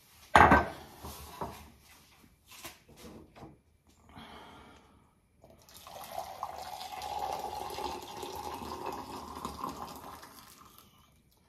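A sharp thump near the start and a few light clicks, then hot water poured from a stainless steel electric kettle into a cup for about five seconds, a steady splashing pour.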